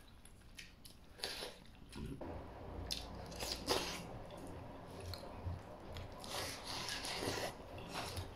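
Someone eating from a ceramic bowl held up to the mouth: chopsticks scraping and clicking against the bowl, with close chewing.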